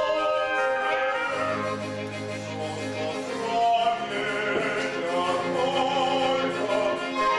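A male opera singer singing long held notes with a live chamber orchestra of strings, in an operatic style.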